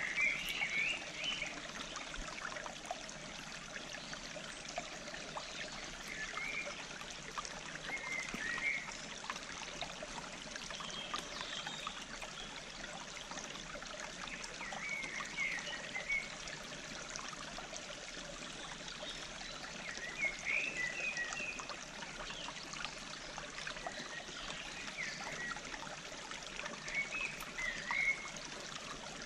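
Forest stream flowing and trickling in a steady rush of water. Short bird chirps break in every few seconds.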